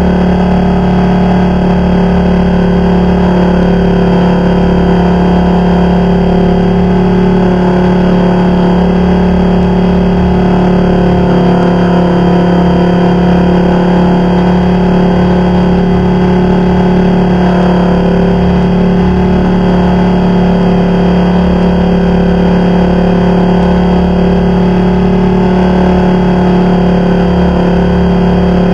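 Blade 400 electric RC helicopter in flight, heard from a camera slung beneath its landing gear: a loud, steady drone of its motor, gears and main rotor, holding one pitch.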